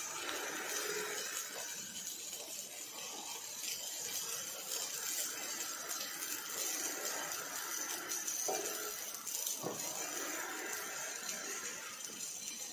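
Steady crackling hiss of an OTC welding robot's MIG arc laying a bead on steel.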